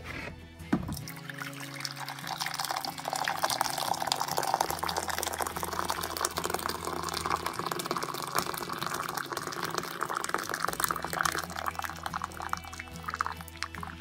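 Hot water poured in a steady stream into a ceramic mug of squeezed lemon juice, splashing and foaming as the mug fills, after a short knock just before the pour starts. Soft background music with a steady low drone plays underneath.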